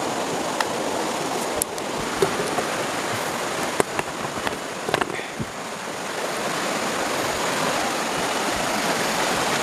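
Steady rush of a swollen, fast-flowing river running high after heavy water, its current very swift. A few light knocks and clicks sound over it in the first half.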